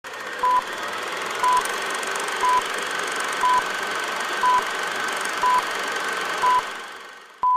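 Film-leader countdown beeps: a short, steady electronic beep once a second, eight in all, over a steady hiss with a faint whine that fades away just before the last beep.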